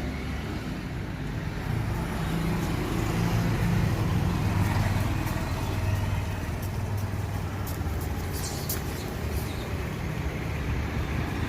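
Steady low rumble of road traffic, with a few faint ticks about halfway through.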